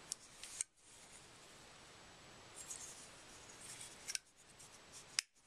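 Bradley Alias 1 titanium frame-lock folding knife being worked open and shut. There are sharp metallic clicks as the blade snaps into place and the lock bar releases, a couple near the start and a couple near the end, with faint sliding between them.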